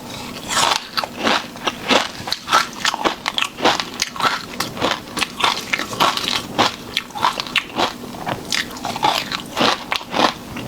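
A person chewing shrimp close to the microphone: a steady run of crisp crunches and clicks, several a second.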